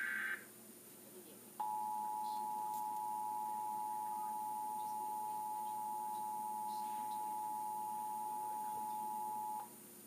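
The last Emergency Alert System header data burst, a short buzzing screech that ends just after the start. Then, about a second and a half in, the EAS two-tone attention signal (853 and 960 Hz together) sounds steadily for about eight seconds from a TV speaker and cuts off abruptly near the end, marking a national test of the alert system.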